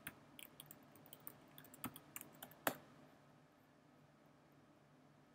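Typing on a computer keyboard: a quick, faint run of key clicks for about three seconds, ending with one louder keystroke.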